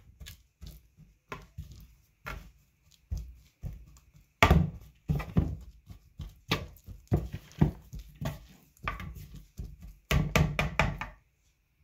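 A metal spoon stirring and scraping a crumbly cassava-starch dough in a plastic bowl: irregular short knocks and scrapes, one or two a second, that stop shortly before the end.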